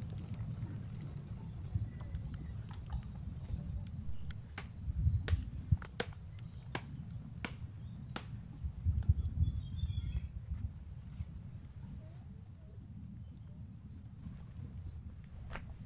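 Open wood fire under a flat cooking stone, crackling with sharp, irregular pops, most of them a few seconds into the sound. Beneath it runs a low rumble, with faint bird chirps.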